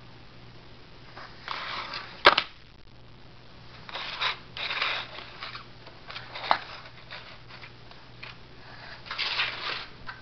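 Cat sniffing and rubbing its face against a corrugated cardboard scratcher: a few short rasping scuffs, with two sharp clicks, the first about two seconds in and the second about six seconds in.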